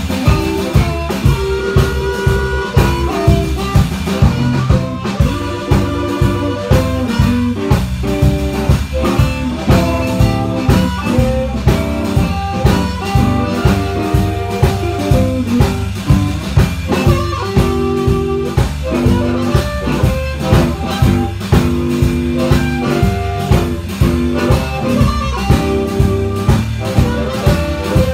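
Blues band playing an instrumental: harmonica playing sustained melodic lines over electric guitar and a drum kit keeping a steady beat.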